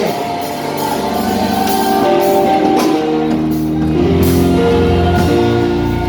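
Live worship music in a large hall: a band playing sustained chords with guitar and drums, and some singing.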